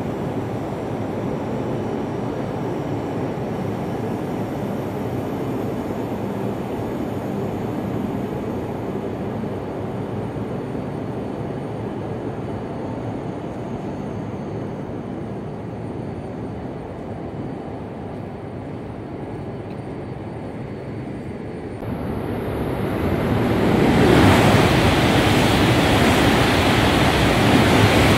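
A Tohoku Shinkansen train passes through the station at speed on the through track. Its rushing noise swells about 22 seconds in and is loud and steady from about 24 seconds. Before that there is a steady low rumble of station and track noise.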